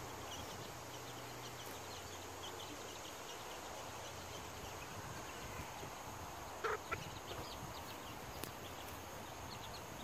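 Chickens foraging: two short clucks close together about seven seconds in, over a steady background with faint high chirping throughout.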